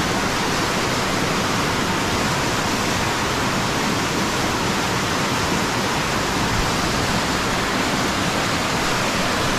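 Muddy creek in flood, its fast brown water rushing down the channel in a steady, unbroken rush.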